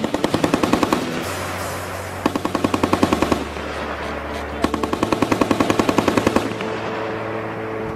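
M2 Browning .50-calibre heavy machine gun firing three bursts, the last and longest nearly two seconds, at roughly nine or ten rounds a second, over background music.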